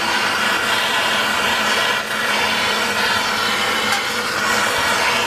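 MAPP gas hand torch burning steadily with an even hissing flame, played onto a crucible to keep sterling silver molten.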